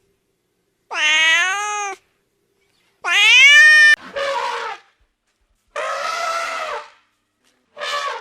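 Domestic cat meowing repeatedly: about five separate meows of around a second each, the one a little past the middle rising in pitch and the loudest, the later ones hoarser.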